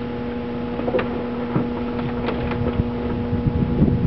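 Oldsmobile 307 V8 with a four-barrel carburetor running on a cold start, a steady hum with some irregular light knocks over it.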